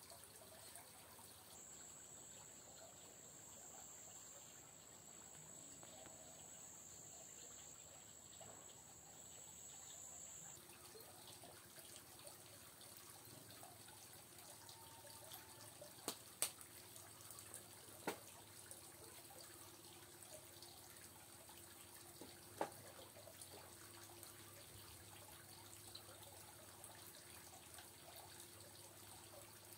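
Near silence with faint trickling, dripping water. A thin, high, steady tone sounds for about nine seconds near the start, and a few sharp clicks come around the middle.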